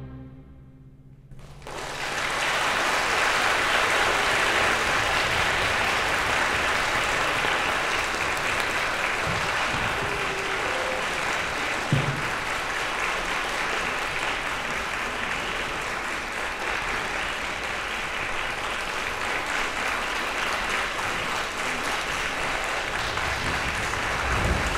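Concert hall audience applauding at the end of an orchestral symphony performance. The hall's reverberation from the final chord dies away, and about a second and a half in the clapping starts and holds steady.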